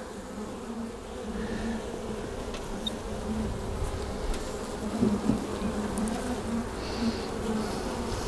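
Honey bees buzzing around an open hive during an inspection: a steady, wavering hum that grows a little louder about a second in.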